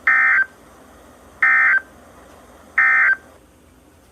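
Emergency Alert System end-of-message data tones: three short identical bursts of digital warble, each under half a second and about a second and a half apart, signalling the end of the flash flood warning broadcast.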